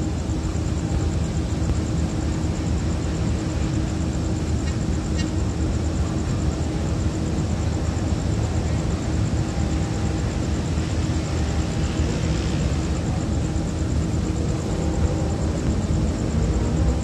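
Diesel train engine running steadily: a continuous low rumble with a steady hum over it.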